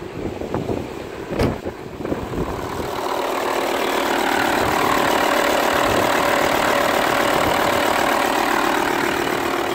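Volkswagen Touareg engine being started: a couple of knocks, then the engine fires about two seconds in and settles into a steady idle. It is running with a newly fitted air-conditioning compressor, the part blamed for the noise it made at start-up.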